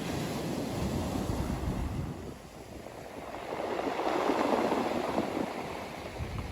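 Ocean surf breaking on a beach: a wash of waves that swells, eases briefly about two seconds in, then surges louder with the next wave around four seconds in before falling back.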